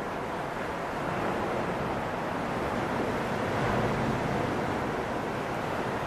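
Steady rushing noise of wind and ocean surf, swelling slightly around the middle, with no distinct events.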